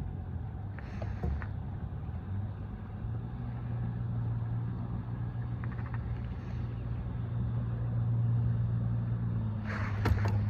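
A steady, low engine drone that grows louder later on, with a short clatter near the end.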